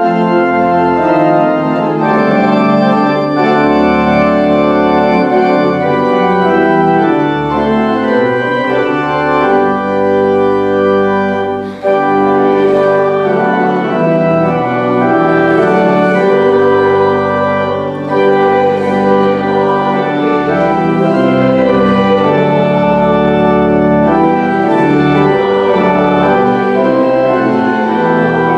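Pipe organ playing loud sustained chords over a low pedal bass line, striking up suddenly at the start.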